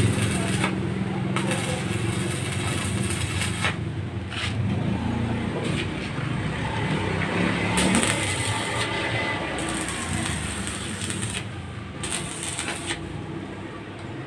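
A small engine running steadily, its note rising briefly about halfway through and the sound slowly growing quieter.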